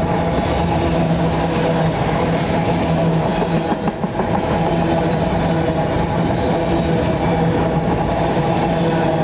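CSX autorack freight train rolling past: a steady rumble of steel wheels on rail with a constant low hum, dipping briefly about four seconds in.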